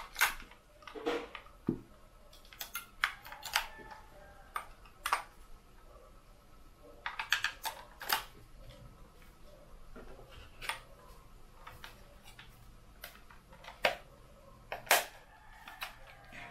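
AA batteries being fitted into the plastic remote controller of a Holy Stone HS650 drone: irregular sharp clicks and clacks of the batteries and plastic casing being handled.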